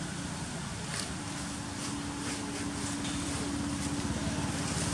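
A steady low motor hum, like a vehicle engine running nearby, growing gradually louder toward the end.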